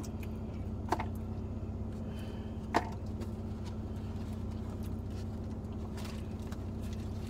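Steady low hum inside a car cabin, with a few short clicks and rustles as fast food and its packaging are handled, the sharpest a little under three seconds in.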